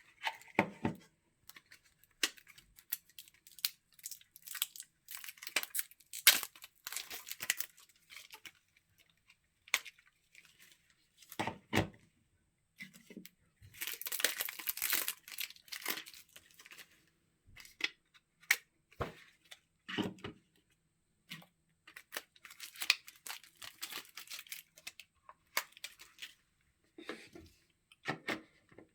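Plastic packaging crinkling and tearing, broken up by scattered clicks and knocks as plastic cordless phone handsets and charging bases are handled. The longest stretch of crinkling comes about halfway through.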